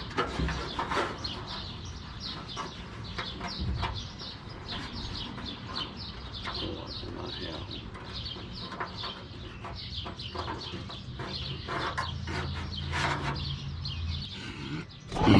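Birds chirping over and over in quick short calls, with a low steady hum underneath and a few sharp clicks.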